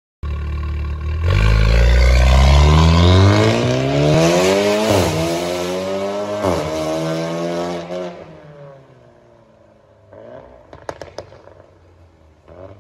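Volkswagen Golf 7.5R's turbocharged 2.0-litre four-cylinder, on a stage 3 tune with a straight-through downpipe and a CGW valved exhaust with its valves open, accelerating hard. The revs climb, drop at two quick upshifts about five and six and a half seconds in, and climb again, then the sound fades away into the distance.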